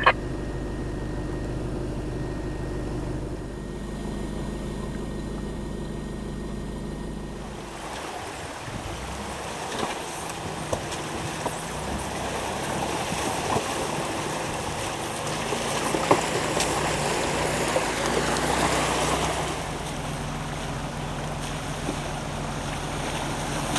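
Low, steady engine hum of an off-road 4x4 driving a mountain track. About eight seconds in it gives way to the steady rush of a mountain stream and small waterfall at a ford, with a few sharp knocks.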